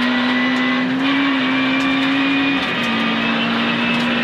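Peugeot 106 rally car's engine pulling hard at a steady high note, heard from inside the cabin over the rush of gravel under the tyres. The engine note dips slightly about two and a half seconds in, then holds steady again.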